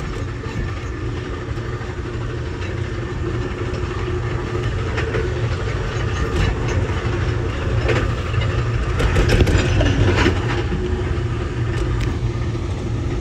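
Amtrak Southwest Chief passenger train running, heard from inside the train: a steady low rumble of wheels on rail, with a few sharper clacks around the middle as the train rolls over the junction's track switches.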